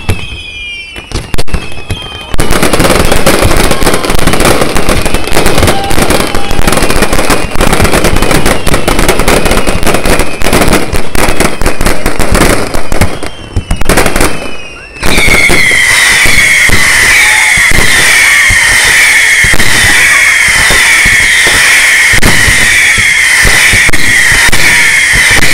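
Aerial fireworks going off in rapid succession. A few sharp bangs with falling whistles come first. From about two seconds in there is a dense, continuous barrage of crackling bursts, and from about halfway on a steady run of overlapping falling whistles sounds over the bangs.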